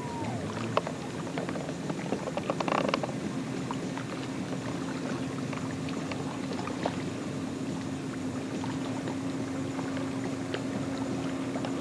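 Pontoon boat's outboard motor running steadily at cruising speed as the boat passes, a steady drone that grows stronger after about five seconds. A few short clicks in the first three seconds.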